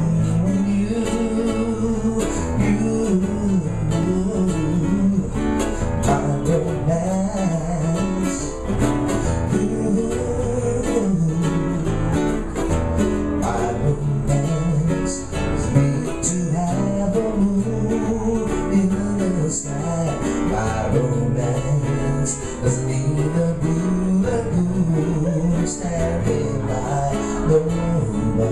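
Live Hawaiian song played on acoustic guitars and a ukulele, strummed and plucked, with singing.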